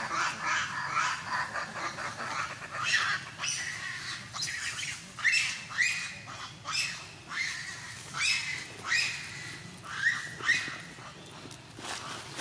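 Monkeys giving shrill squealing calls, several overlapping in the first few seconds, then single short calls about once a second.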